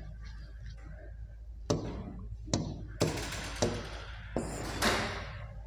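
Writing on a board: about half a dozen sharp taps with short scratchy strokes between them, starting a little under two seconds in.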